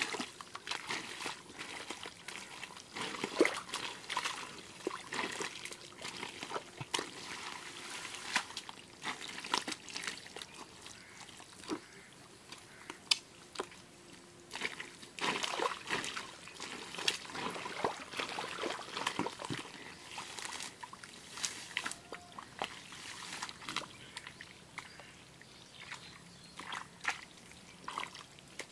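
Hands and booted feet working through thick, wet mud: squelching and sloshing with trickling muddy water, in irregular bursts of sharp wet smacks.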